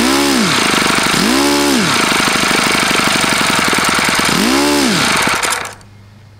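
OS FS-48 Surpass four-stroke glow engine swinging a 12x6 propeller, running steadily at high speed, about 12,000 rpm. The owner says the engine has bad bearings. The engine cuts off about five and a half seconds in.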